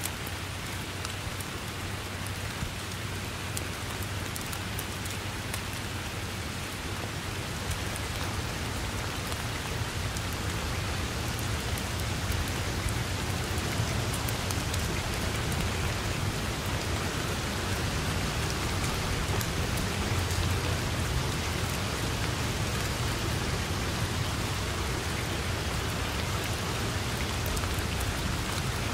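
Steady heavy rain falling, with a dense patter of individual drop ticks over a low steady rumble; the downpour grows a little louder about ten seconds in.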